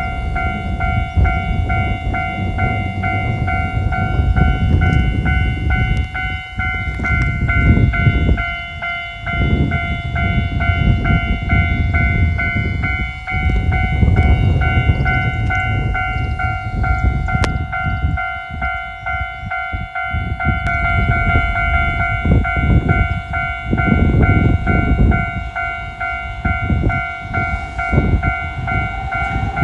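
Narrow-gauge Sangi Railway Hokusei Line train running with a rising and falling low rumble, under a steady high-pitched ringing tone that holds throughout.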